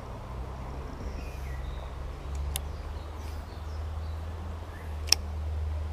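Outdoor ambience by a small stream: a steady low rumble with faint bird calls, broken by two sharp clicks, the louder one about five seconds in.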